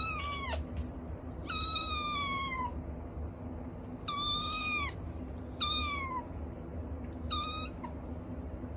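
A cat meowing repeatedly: four drawn-out meows, each dropping in pitch at its end, the last one short.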